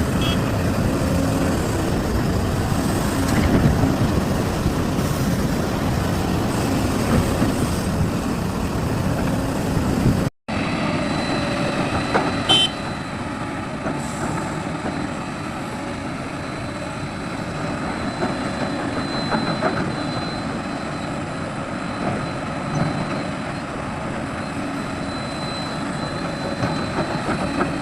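Heavy diesel machinery running: excavator and dump truck engines at work, a steady rumbling noise. About ten seconds in it cuts off for a moment, then goes on a little quieter.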